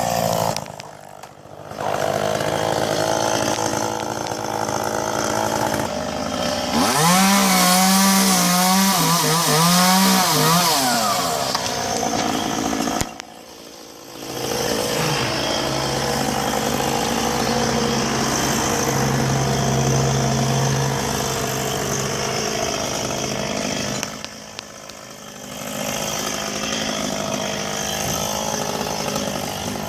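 Chainsaw running and cutting, its engine note rising and falling as it is revved and loaded, broken by a few brief dips where the sound cuts away.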